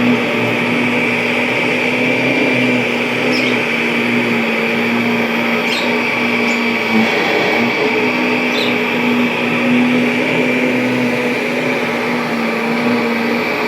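Kirby G5 upright vacuum cleaner running steadily: a constant motor hum with a high whine above it, and a few faint ticks.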